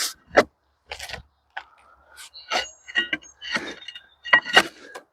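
Bark being pried and torn off a scarlet oak log: irregular scraping, cracking and tearing, with a few short high-pitched squeals partway through.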